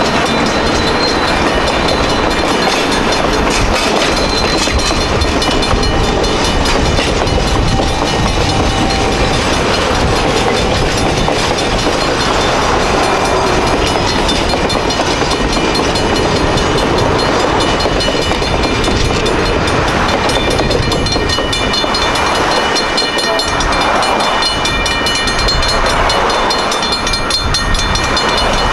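Napa Valley Wine Train passing through a grade crossing, steel wheels rolling over the rails with a steady rumble. The crossing's Safetran mechanical bell rings continuously over it.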